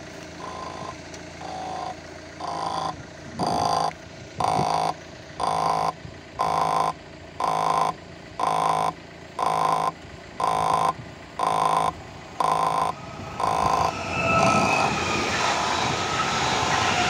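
Level crossing warning signal sounding a short electronic tone about once a second. From about 14 s in, the EN76 electric multiple unit approaches and its running noise rises over the tones.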